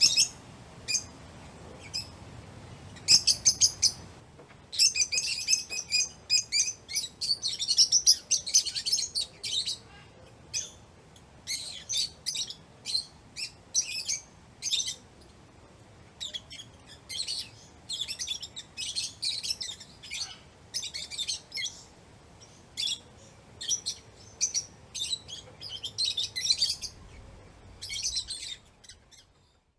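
A group of lovebirds chirping: fast, high-pitched chattering in dense runs, then shorter separate chirps that thin out near the end.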